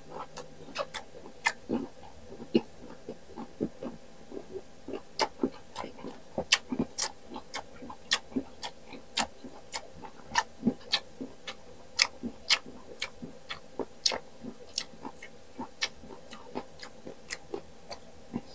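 Close-miked chewing of crisp unripe green mango: a run of sharp, irregular crunches and wet mouth clicks.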